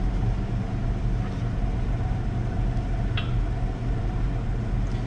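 Steady low mechanical hum in a workshop, with one faint metallic click about three seconds in.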